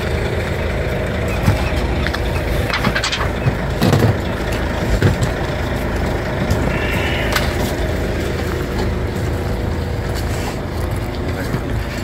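A truck engine running steadily at idle, with a few knocks and clatters between about three and seven seconds in.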